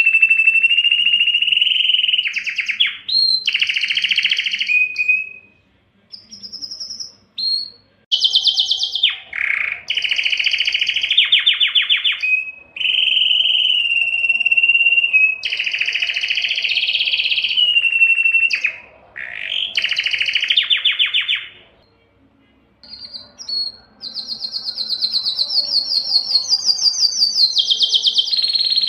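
Canary singing an excited breeding-season song: long phrases of held whistled notes and rapid trills, with short breaks about six seconds in and again around twenty-two seconds.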